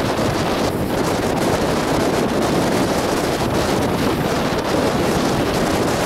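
Strong wind blowing across the microphone, a loud, steady rushing and rumbling, with breaking surf mixed in.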